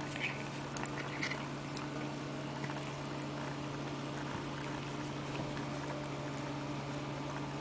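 Steady low hum throughout, with a few brief soft sounds in the first second or so as a cat chews a piece of macaroni taken from fingers.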